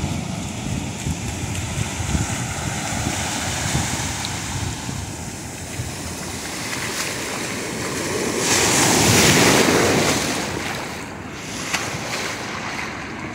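Ocean surf washing and breaking on a beach, with wind buffeting the microphone. A louder rush of water swells up about eight and a half seconds in and dies away two seconds later.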